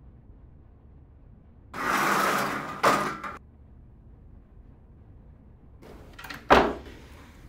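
A metal grille security gate scrapes along for about a second and a half, then clanks, about two seconds in. Near the end a wooden front door is pushed shut: a few latch clicks, then a solid thud.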